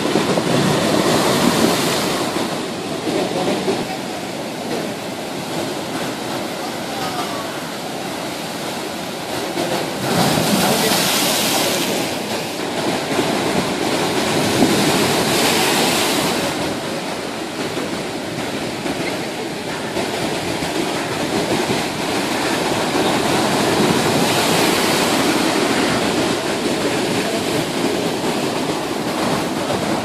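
Rough monsoon sea surf: heavy waves breaking and washing up the shore in a continuous rush of water. The sound swells as each wave crashes, with the loudest breaks about ten, fifteen and twenty-five seconds in.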